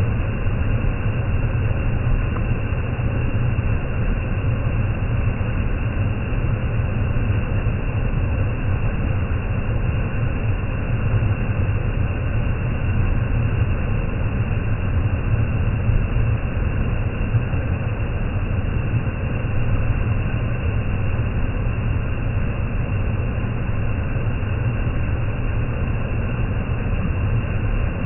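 Waterfall in full rainy-season flow, heavy water falling with a steady rush that is strongest in a low rumble.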